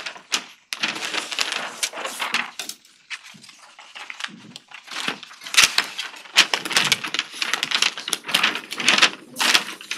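Paper rustling and crinkling close to a microphone: sheets being handled and leafed through in an irregular run of crackles and clicks, louder in the second half.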